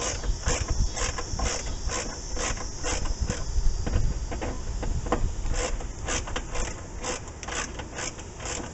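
Hand screwdriver turning screws into the Beetle's door to hold the window regulator: a steady run of short clicks, about two to three a second.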